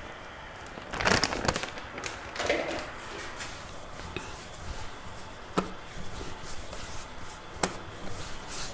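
Hands pressing and rolling yeast bread dough into a log on a floured marble countertop: soft rubbing and pressing, a rustle about a second in, and a couple of sharp taps later on.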